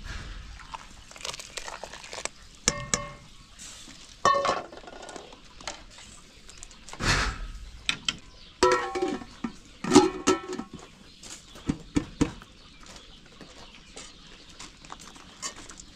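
Kitchenware being handled: irregular clinks and knocks of dishes and pots, several of them ringing briefly.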